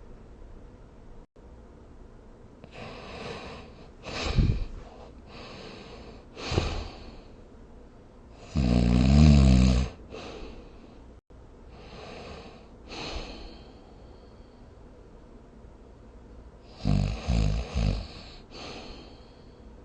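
A sleeper snoring, breath after breath: softer rasping breaths and short snorts, a long buzzing snore about nine seconds in (the loudest), and a choppy snore broken into three quick pulses near the end.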